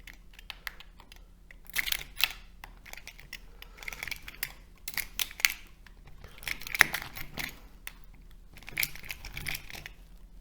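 Knife blade working between the steel E-I laminations of a transformer core, cutting the lacquer and prying the plates loose: metal-on-metal scrapes and clicks in several short bursts.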